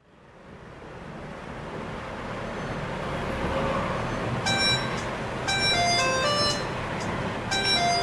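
A steady background noise fades in, then a mobile phone ringtone starts about four and a half seconds in, playing a chiming electronic melody of short notes at changing pitches.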